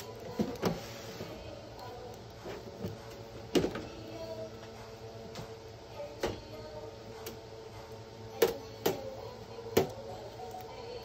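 Sharp plastic clicks and knocks, about seven of them spread out, from the casing, lid and panels of an Epson inkjet printer being handled while its blue shipping tape is pulled off.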